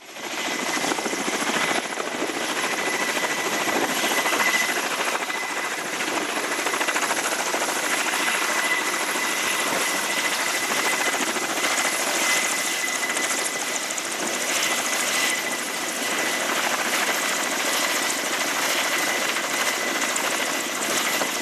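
Kamov Ka-27 Helix helicopter's turbines and coaxial rotors running close by, a steady heavy noise with a constant high whine that neither rises nor falls.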